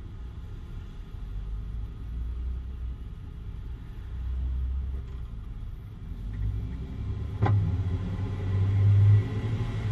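2013 Jeep Wrangler Unlimited under way with a low rumble that builds as it pulls away. About seven and a half seconds in there is a single sharp pop from the rear end, the popping or clunking noise it makes right after takeoff.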